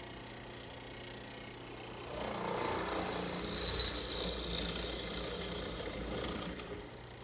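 Hollow-chisel mortiser running with a steady motor hum. From about two seconds in until shortly before the end, its chisel and bit plunge into a cypress chair leg, boring out a mortise with a louder, rougher cutting sound and throwing out chips.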